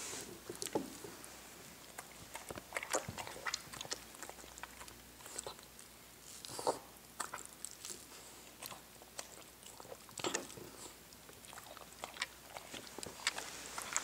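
An old Xoloitzcuintli (Mexican hairless dog) with only four fangs left eating chopped vegetables and dog food from a ceramic bowl: irregular chewing and crunching with sharp clicks.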